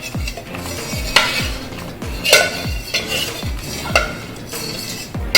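Background music with a steady beat, about two deep bass thumps a second, over light clatter of kitchen utensils.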